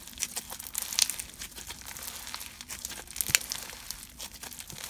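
Clear slime packed with Bingsu beads being stretched and pulled by hand, giving a crunchy crackle of many small clicks, with louder snaps about one second and three seconds in.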